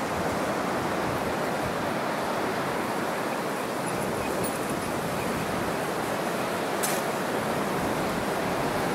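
Steady rush of a mountain river flowing through the gorge below. A faint single click comes about seven seconds in.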